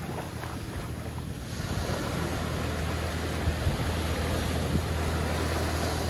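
Small waves washing up onto a sandy beach: a steady surf hiss that swells about a second and a half in as a wave breaks and runs up the sand, over a steady low rumble.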